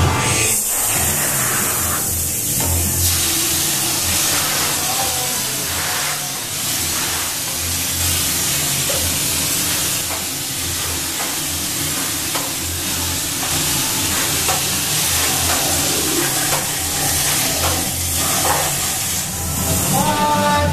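Drywall texture hopper gun spraying texture mud with compressed air: a loud, steady hiss that starts just after the beginning. Low rhythmic pulses run underneath.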